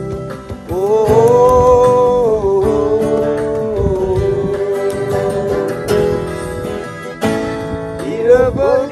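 A slow Korean ballad on acoustic guitar, with a man's voice holding long sliding notes and singing again near the end.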